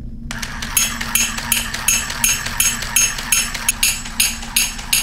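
Toy cymbal monkey switched on: its mechanism starts with a steady whir and its cymbals clash together in an even rhythm, about three times a second. It clashes without any screech.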